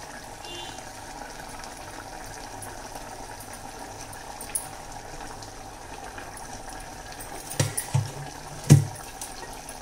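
Dried-fish tamarind curry simmering in a pot over a gas flame, a steady bubbling hiss. Near the end come three short knocks, the last the loudest.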